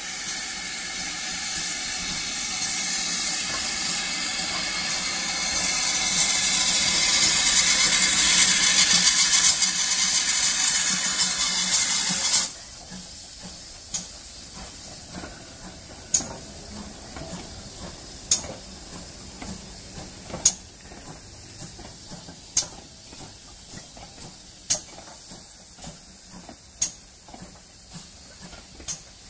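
Steam hiss from the Great Western Railway Manor Class 4-6-0 steam locomotive No. 7820 Dinmore Manor as it runs into the platform. The hiss grows louder as it nears and cuts off suddenly about twelve seconds in. After that the train rolls slowly past with sharp clicks about every two seconds.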